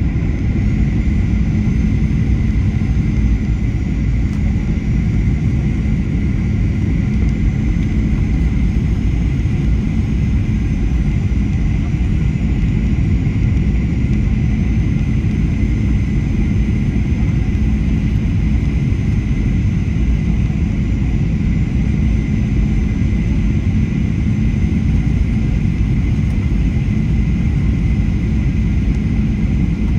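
Cabin noise of a Boeing 737-800 on final approach, heard from a window seat over the wing: a steady low rumble of airflow and its CFM56 engines, with a steady high tone running over it.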